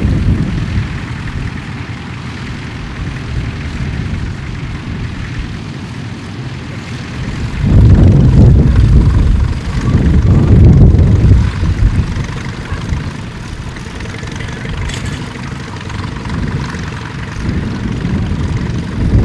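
Tractor engine running steadily with a low rumble, with loud gusts of wind buffeting the microphone between about eight and eleven seconds in.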